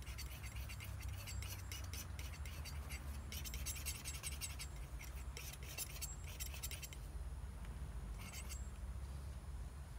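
Steel palette knife scraping and spreading oil paint across a canvas panel in quick repeated strokes. The strokes stop about seven seconds in and return briefly near the end, over a steady low hum.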